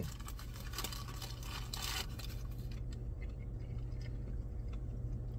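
A person chewing a mouthful of fried chicken nugget close to the microphone: soft, irregular crunching and wet mouth sounds, busiest in the first couple of seconds. A low steady hum runs underneath.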